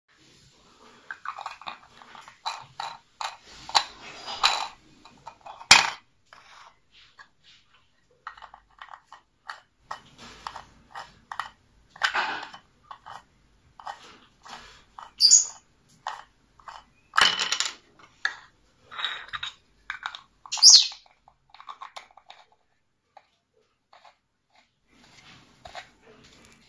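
Small 3D-printed plastic salt-shaker parts clicking, knocking and scraping as caps are pushed and twisted onto their bodies and set down on a desk, with a few sharp knocks and two short squeaks of plastic rubbing on plastic during a fit test.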